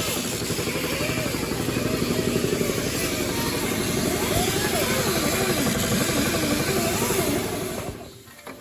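A motor running steadily with a fast, even pulse, with voices over it; it cuts off abruptly about eight seconds in.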